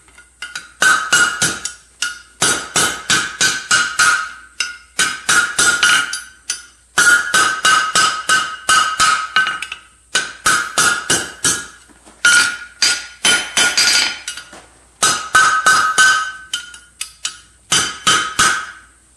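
Hand hammer striking red-hot 3/8-inch round steel rod over the anvil horn, bending it into a U-shape: quick runs of blows, about four or five a second, with short pauses between runs. Each run sets the anvil ringing at a steady pitch.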